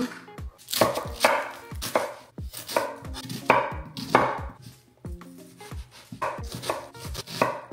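Kitchen knife chopping a white onion on a wooden cutting board: an irregular run of sharp knocks of the blade on the board, several a second, with a short lull about five seconds in.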